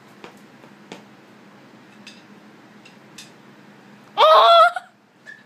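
Quiet room tone with a few faint clicks, then, about four seconds in, a short loud yell from a man's voice, lasting about half a second.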